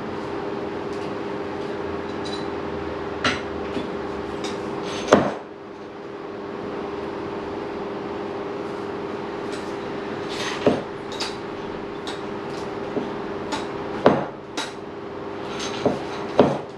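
Harley-Davidson Shovelhead front fork leg worked up and down by hand: the inner tube slides stiffly in its slider, with a handful of irregular metallic clunks, the loudest about five seconds in. A steady hum runs underneath.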